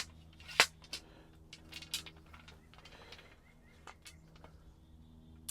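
Scattered sharp clicks and light knocks of an ice-shelter hub assembly being handled and turned over, the loudest about half a second in. A faint steady hum runs underneath.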